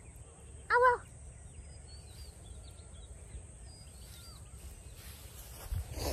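Faint, short bird chirps over a low rumble of wind on the microphone, with a brief rustle near the end.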